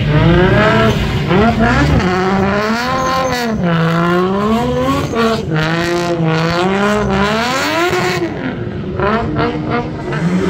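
Drift car engine revving, its pitch swinging up and down every second or two as the throttle is worked through a slide.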